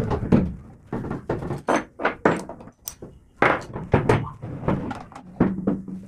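Irregular clicks and knocks of plastic and metal parts being handled, as a side-handle clamp and bracket are fitted to an electric demolition hammer and the hammer is set down on a wooden workbench; the hammer itself is not running.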